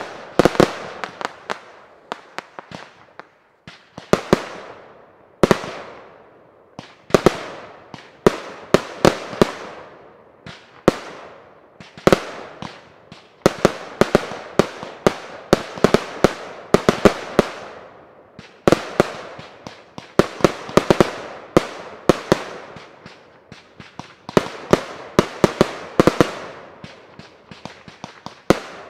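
Fireworks display batteries firing: sharp bangs in quick salvos every second or two, each cluster followed by a rolling echo.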